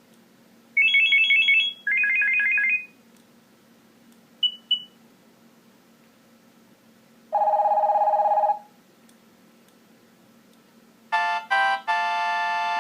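A run of Nokia 6230i alert tones played one after another, with short pauses between them. First come a fast two-note electronic trill, a lower trill and a quick double beep. Then a lower buzzing tone lasts just over a second, and near the end a few short chords lead into a longer ringtone melody.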